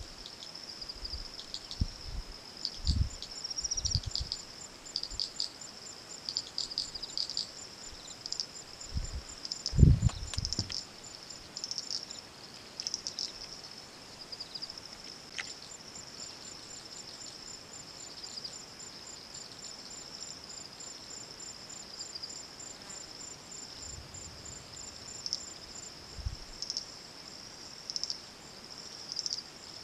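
Insects chirring steadily in a high continuous band, with a faster pulsing trill above it. A few short low bumps come in the first ten seconds, the loudest about ten seconds in.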